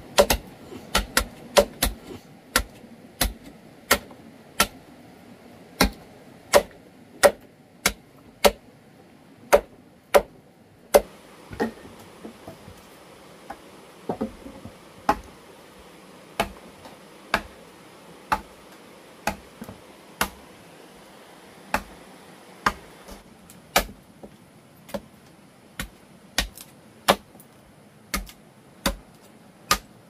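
Chopping: a long series of sharp, single strikes at an uneven pace of roughly one a second, a blade cutting into wood.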